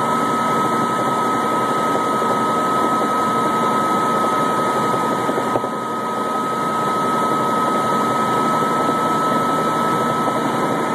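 Helicopter engine and rotors running steadily, heard from on board: a constant noise with a steady high whine, dipping briefly in level about halfway through.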